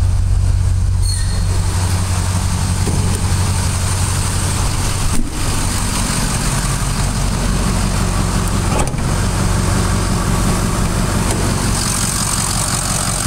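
Ford 6.0-litre Power Stroke V8 turbodiesel idling steadily, with a high hiss that grows stronger near the end. The sound drops out briefly twice, about 5 and 9 seconds in.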